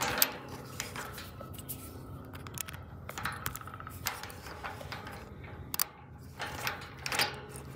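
Padlock, key and steel chain being handled: metallic jingling and sharp clicks, the sharpest about a quarter second in.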